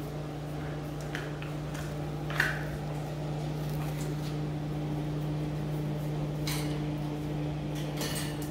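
Puppies play-wrestling on a tile floor, with a few light clicks and taps over a steady low mechanical hum.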